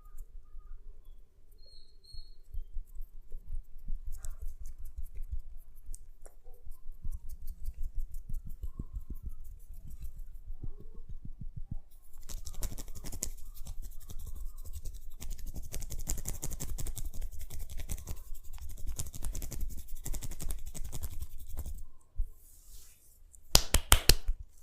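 Hands massaging a head close to the microphone: rapid rubbing and patting on skin and hair. About halfway through it turns to a brisker, scratchier rubbing, and near the end there is a quick run of sharp, loud taps.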